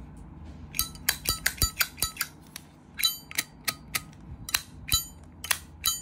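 Brass Zippo lighter lid flicked open and snapped shut over and over: a run of sharp metallic clicks, each with a brief ring.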